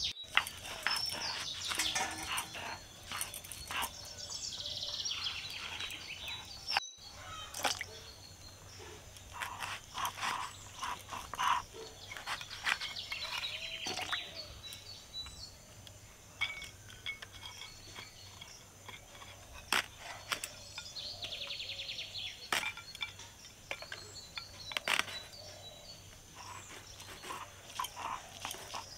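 Vegetables, eggplant and ridge gourd, being cut by hand with a small knife, the pieces dropped into a steel bowl of water, giving scattered sharp clicks and knocks. Birds chirp in the background.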